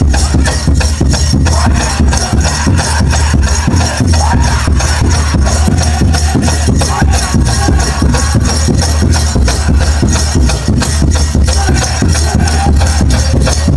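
Powwow drum group pounding a big drum in a steady, even beat while the singers chant a grass dance song; loud.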